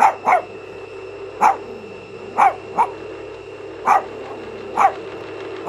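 Small dog barking in about eight short yaps, some in quick pairs, each dropping in pitch.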